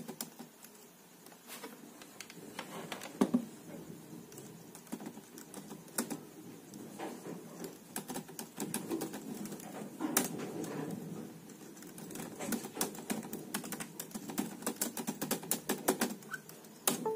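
Keystrokes on a computer keyboard, typed slowly and unevenly with short pauses, a few keys struck harder than the rest.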